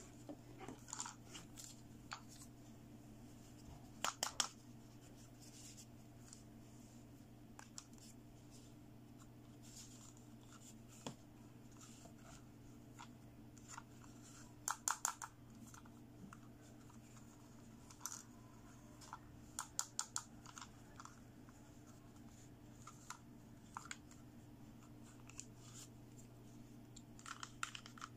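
Small plastic toy doctor-set pieces being handled, giving faint scattered clicks and taps, some in quick runs of two to four, over a steady low hum.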